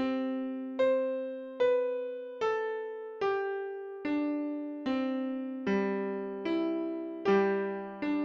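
Background music of slow keyboard chords, one struck about every 0.8 seconds, each ringing and fading away before the next.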